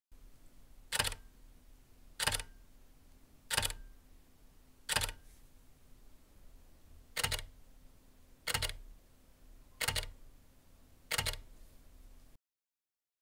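Mechanical shutters of a Canon EOS R6 and an EOS R6 Mark II fired in single-shot mode: eight separate shutter clicks, about one every 1.3 seconds, in two sets of four with a short pause between them.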